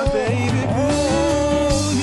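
Music: a song with a held, gliding sung melody over a bass line.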